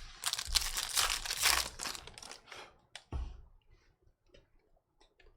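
Plastic wrapper of a trading card pack being torn open and crinkled for about two seconds, then a sharp click and a soft thump, followed by faint light ticks.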